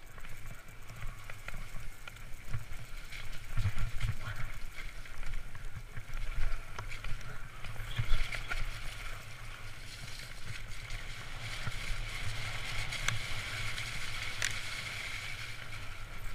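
Trek Fuel EX 8 full-suspension mountain bike ridden fast down a dirt forest trail, heard from a camera mounted on the rider: steady rumble of wind and tyres on dirt and leaves, with scattered sharp rattles and knocks from the bike over bumps.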